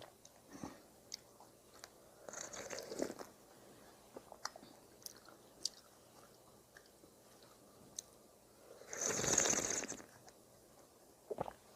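Close-miked eating sounds: chewing and crunching, with small mouth clicks. There are two louder noisy bursts, one about two seconds in and a stronger one near nine seconds.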